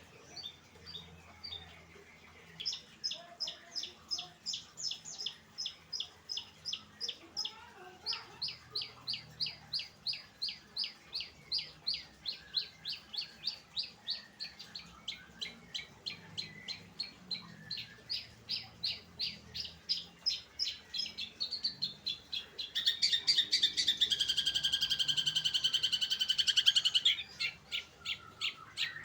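Long-tailed shrike (cendet) singing: a long run of quick, repeated high notes, about three to four a second. Near the end comes a louder, dense, harsh chatter lasting about four seconds, then the repeated notes start again.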